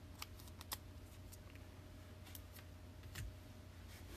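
Faint flicks and clicks of football trading cards being handled and thumbed through, several in the first second and a few more scattered after, over a low steady hum.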